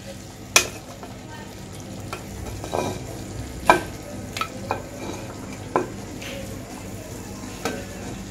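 Chicken pieces in thick sauce sizzling faintly in a pan while a kitchen spatula scrapes and knocks against the pan and plate as they are dished out: about half a dozen sharp knocks, the loudest about half a second in and again near the middle.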